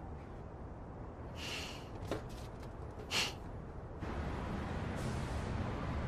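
Two short breathy exhales from a woman over a low rumble, with a small click between them. About four seconds in, faint soft background music begins.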